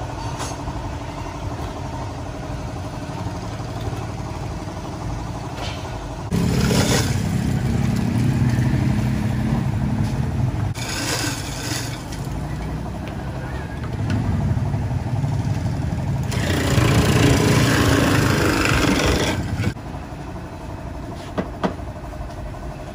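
Electric ice shaver running: its motor switches on abruptly with a low hum, ice grinds against the blade in three hissing spells, and the machine stops short near the end.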